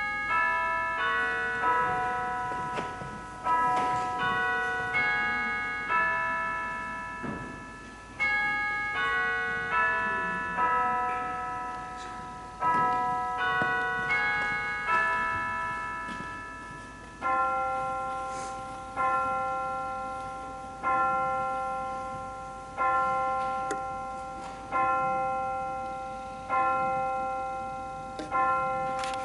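Church bells chiming a tune of several short phrases, then striking a single repeated bell note about every two seconds, in the manner of a clock striking the hour. Each stroke rings on and fades before the next.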